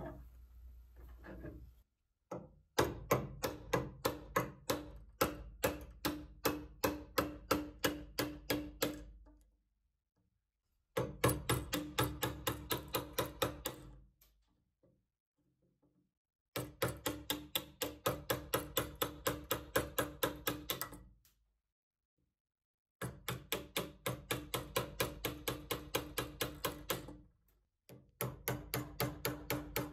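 A small hammer tapping a wide steel chisel into a beech wood block held in a metal bench vise, about three taps a second in runs of several seconds, each tap with a slight metallic ring.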